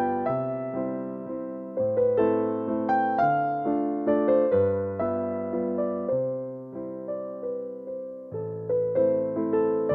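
Background music: slow, gentle piano, with chords struck and left to fade over deep bass notes that change every second or two.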